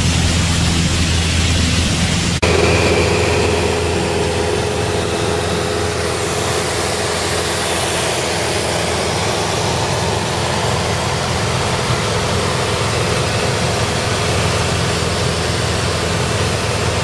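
Single-engine Piper light aircraft's piston engine and propeller droning steadily in cruise, heard inside the cabin with airflow hiss. The drone breaks briefly about two seconds in and carries on with a slightly different tone.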